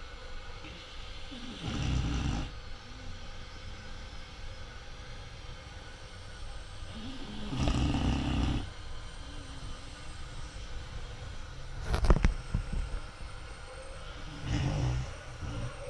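Slow snoring: three loud snores about six seconds apart. A short sharp knock comes about twelve seconds in.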